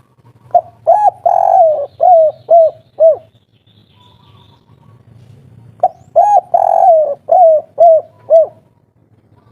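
Spotted dove (tekukur) cooing its 'kuk 3' song twice. Each phrase is about six low coos: a short opening note, a longer drawn note, then three short 'kuk' notes at the end. The second phrase starts about six seconds in.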